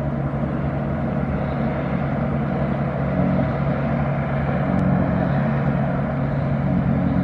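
Steady low engine drone with a constant hum, unchanging throughout.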